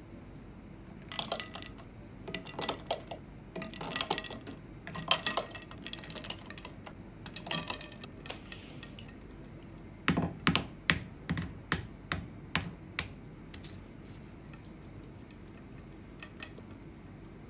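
Scattered clusters of light clicks and taps, then a run of about nine sharp knocks at roughly three a second, with a few faint clicks near the end.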